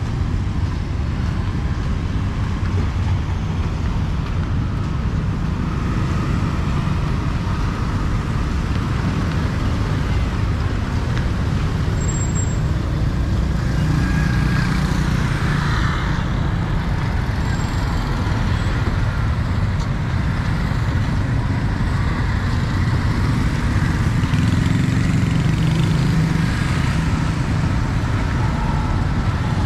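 Steady city street traffic: motorbikes, tuk-tuks and cars passing, a continuous rumble of engines and tyres that swells a little as vehicles go by.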